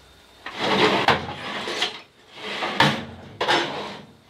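A drawer being slid open and shut, twice, each stroke lasting about a second.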